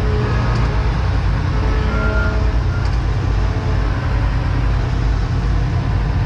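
New Holland L521 combine harvester's Fiat diesel engine running steadily, heard from inside the cab.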